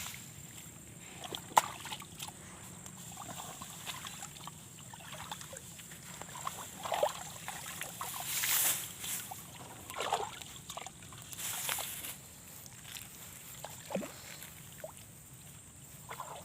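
Irregular sloshing and splashing of water, with a sharp click about one and a half seconds in.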